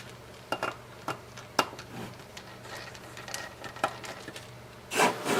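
Scattered light clicks and taps of a small screwdriver working the screws inside an Apple AirPort Extreme router's plastic case, over a faint steady hum. A louder burst of noise comes near the end.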